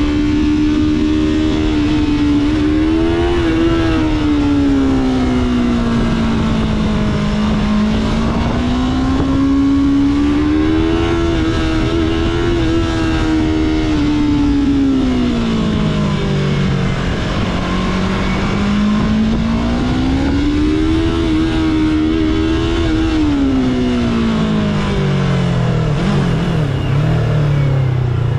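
Yamaha YZF-R3's parallel-twin engine on its stock exhaust, ridden in traffic. The engine note rises and falls several times as the throttle is opened and closed, then drops steadily near the end as the bike slows. A steady rush of wind and road noise runs underneath.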